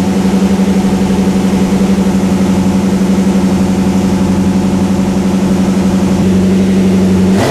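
Pontiac Trans Am engine idling steadily with a fast, even pulse, warming up after the car has sat unused.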